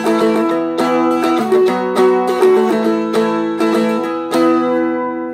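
Seagull Merlin, a small fretted dulcimer-style instrument, strummed in a steady rhythm, its chords ringing and changing a few times as it plays through a simple E, B and A progression.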